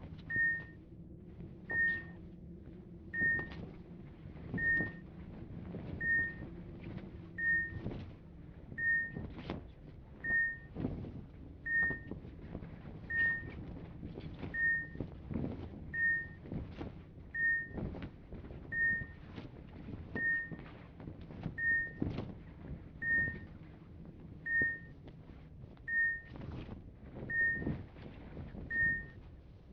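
Hospital medical equipment beeping: one short, high, single-pitched beep about every second and a half, evenly spaced. Under it runs a low hum that fades about eight seconds in, with scattered faint knocks.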